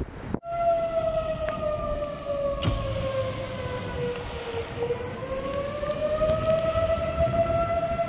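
A siren wailing: one long tone that starts about half a second in, sinks slowly in pitch for about four seconds, then climbs back and holds steady.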